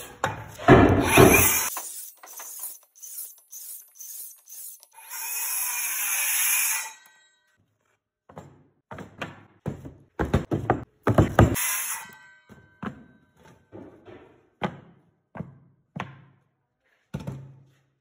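Circular saw cutting through wooden boards twice, each cut lasting one to two seconds. After the cuts come a string of separate wooden knocks and thunks as the cut boards are dropped and shuffled on a wooden work table.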